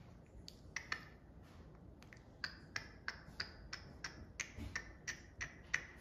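A person making a run of sharp clicks: two just under a second in, then a steady series of about three a second until near the end.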